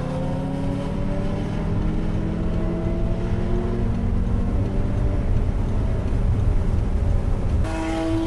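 Audi R8's 4.2-litre V8 heard from onboard, accelerating under load with its note climbing slowly, over heavy road and wind rumble. Near the end the engine note jumps abruptly to a different pitch.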